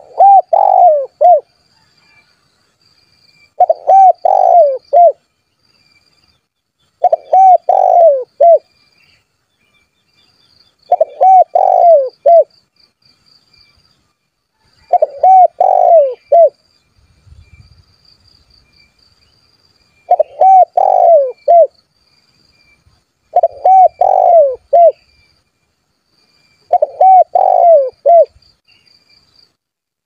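Spotted dove (tekukur) singing vigorously: a short phrase of several coos, repeated eight times about every three to four seconds. This is the dove's advertising call to rival birds.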